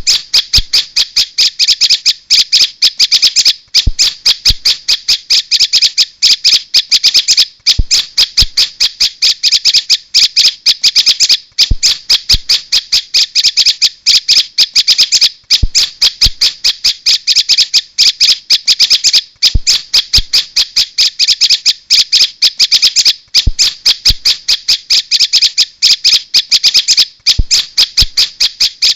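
Prinia (prenjak) calls played as a bird lure: rapid, continuous high chirping, broken by a short gap about every four seconds as the recording loops.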